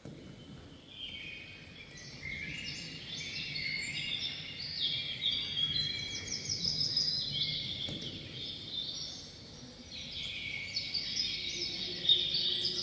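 Birdsong: many small birds chirping and trilling over one another, filling out about a second in and going on without a break.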